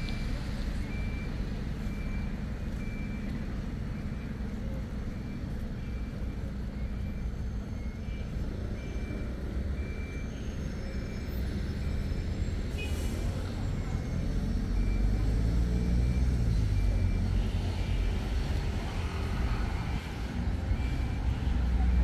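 A vehicle's reversing alarm beeping about once a second, over the low rumble of engines in street traffic; the engine noise swells louder in the second half as a vehicle passes close by.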